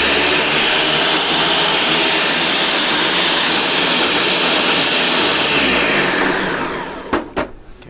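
Ninja Smart Screen blender running at speed, emulsifying eggs and oil into mayonnaise. It is switched off about six seconds in and its motor spins down, followed by a couple of sharp knocks near the end.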